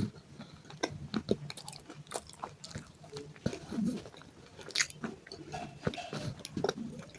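Close-up biting and chewing of broken baked clay pot pieces, with irregular crunches and crackles.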